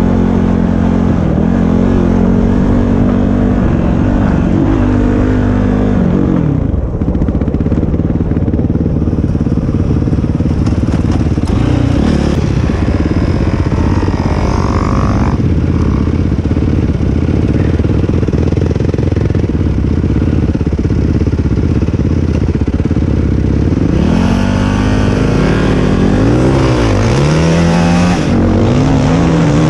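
ATV engine running while being ridden, its pitch rising and falling with the throttle. It is steadier through the middle, with several quick revs near the end.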